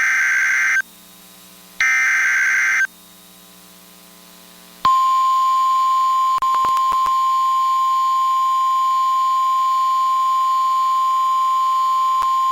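NOAA Weather Radio alert signalling: the last two of the three SAME header data bursts, each about a second of harsh two-pitch warbling tone, a second apart. About five seconds in, the steady 1050 Hz weather radio warning alarm tone starts, with a few brief clicks a second or two after it begins.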